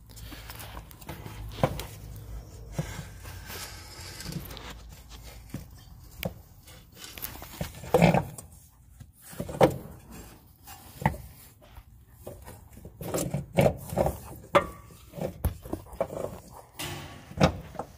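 Irregular knocks, clunks and rubbing as a new Tesla Model S rear air-suspension strut, with its rubber bellows, is handled and worked up into its upper mount in the wheel well. The loudest knocks come about 8 and 9.5 seconds in, with a cluster about two thirds of the way through and again near the end.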